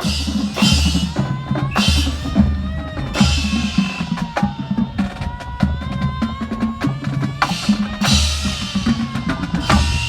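Band music carried by the percussion: bass drums and snare drums playing a driving pattern, with four big cymbal crashes and a wavering melody line above.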